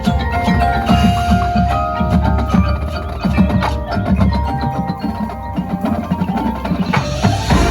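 Marching band music in which the front ensemble's mallet percussion (marimba, xylophone, glockenspiel, chimes) plays quick struck notes over drums and a steady low bass.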